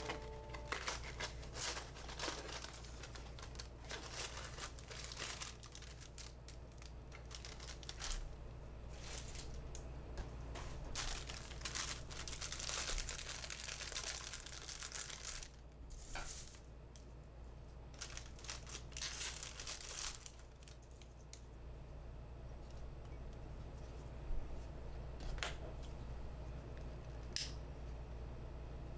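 Crinkling and rustling of wrapping material being handled, in irregular bursts, quieter for a few seconds about two-thirds of the way through, with a few sharp clicks near the end.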